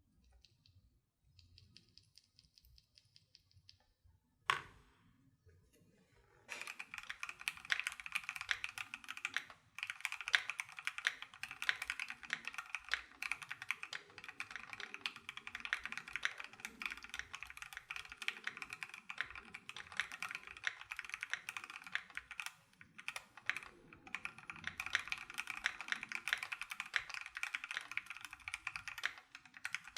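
Typing on a Keychron Q1 prototype mechanical keyboard with factory-lubed Gateron G Phantom Red linear switches and ABS keycaps. After a faint ticking and a single sharp click, a continuous stream of keystroke clacks starts about six seconds in, with short pauses around ten and twenty-three seconds.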